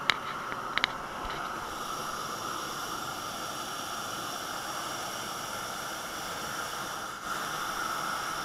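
Steady hiss with a faint high tone in it, and a few sharp clicks in the first second.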